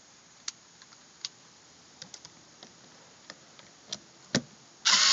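Light scattered clicks and taps of a screwdriver working at plastic roof trim. Near the end, a small electric screwdriver motor starts suddenly and runs with a steady whine.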